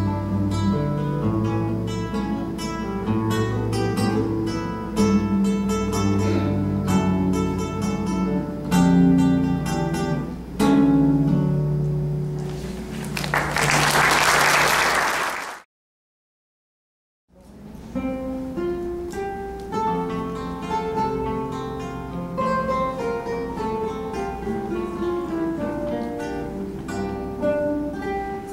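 Solo classical guitar playing a piece to its end, followed by a few seconds of applause. After a short silent gap, several classical guitars play together as an ensemble.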